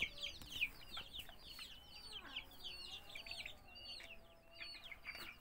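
Chicks peeping over and over, faint: short high peeps that slide downward, about three a second.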